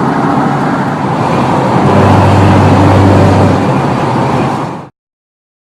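A car driving through a dust storm: steady road and wind noise heard from inside the car. A low drone swells in the middle, then the sound cuts off abruptly about five seconds in.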